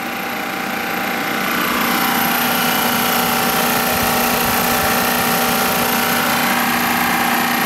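Refrigerant recovery machine running steadily, its compressor pulling the air conditioner's refrigerant circuit down into a vacuum. The steady hum swells slightly over the first two seconds, then holds.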